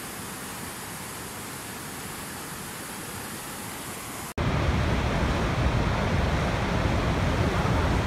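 Rushing mountain-river rapids, a steady even hiss of white water. A little past four seconds in it cuts off abruptly and is replaced by the louder, deeper rushing of a large horseshoe-shaped waterfall.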